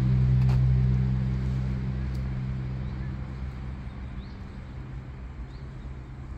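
A vehicle's engine humming at a steady pitch and fading away as it recedes, with a few faint bird chirps near the end.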